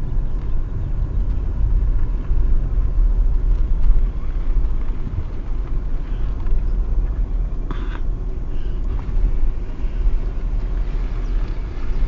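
Car running slowly through a U-turn, heard from inside the cabin: a steady low rumble of engine and tyres, with a brief knock about eight seconds in.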